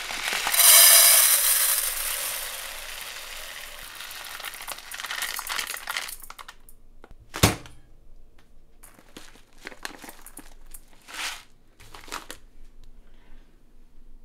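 Dry basmati rice poured from a plastic bag into a rice-cooker pot: a loud hiss of falling grains that tapers off over about five seconds. A single knock follows about seven seconds in, then the plastic rice bag crinkles in several short bursts.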